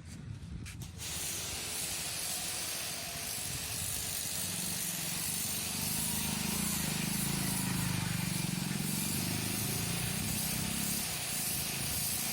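Electric high-pressure car washer (BTALI, 1600 W) spraying water: a steady, even hiss of the jet starts about a second in. A low motor hum under it grows stronger through the middle.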